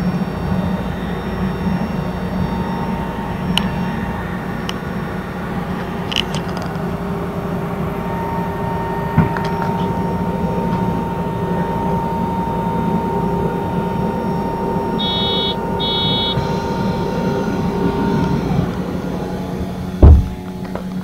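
Steady low machinery hum with a few light clicks. Two short runs of electronic beeps come about fifteen seconds in, and a heavy thump near the end.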